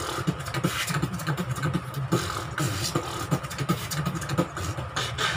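Beatboxing: a fast, steady rhythm of mouth-made low bass pulses and sharp clicks.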